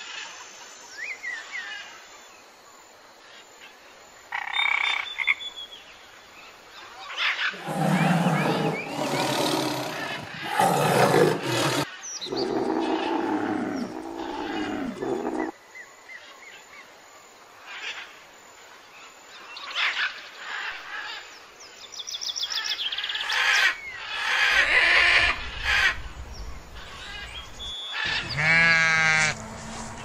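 A run of different animal calls, loud stretches of calling separated by quieter gaps.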